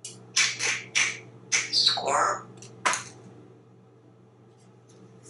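African grey parrot giving a quick run of short squawks and chirps in the first three seconds, one sliding down in pitch about two seconds in.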